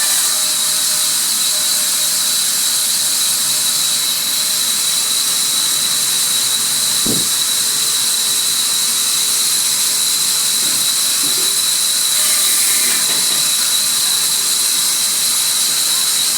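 Sawmill saw running and cutting wood: a loud, steady hiss with a high, even whine over it, and a single low knock about halfway through.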